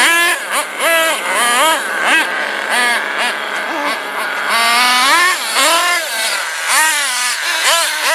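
Small high-revving nitro engines of RC truggies being throttled hard, the pitch shooting up and dropping back over and over, one to two times a second.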